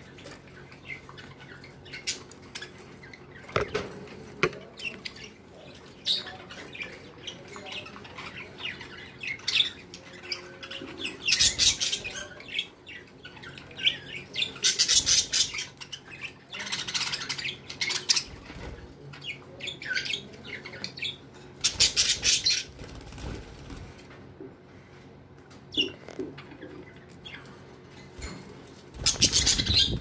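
Budgerigars squawking in repeated loud bursts, the birds' reaction to a hand reaching into their cage.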